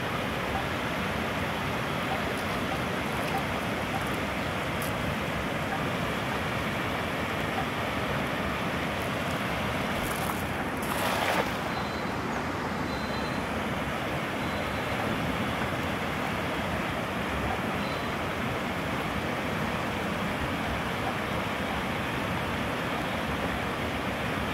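Steady rush of water spilling over a small concrete weir. About ten seconds in comes a brief splash as a cast net lands on the water.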